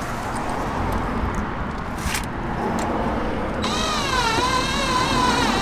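Cordless drill/driver driving a screw into the car's sill to fix a side skirt. About three and a half seconds in its motor whine starts suddenly and wavers in pitch for about two seconds as the screw bites, over a steady high electronic tone. Before that there is only low background noise and a single click.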